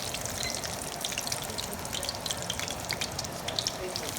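Breaded chicken pieces deep-frying in hot oil: a steady sizzle with many small crackles and pops.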